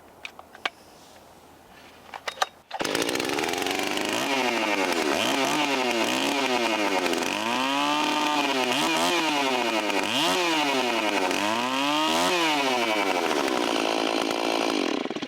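Stihl 034 chainsaw's two-stroke engine starting cold on starting fluid, set on high idle with the air cleaner off: a few clicks, then it catches about three seconds in and runs with its speed swinging up and down over and over, cutting off near the end.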